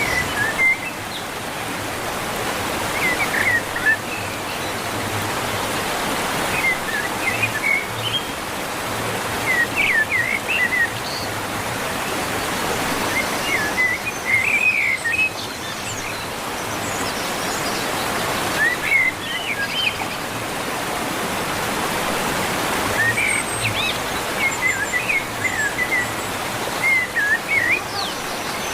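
Birds chirping in short bursts of quick calls every few seconds, over a steady rushing background noise.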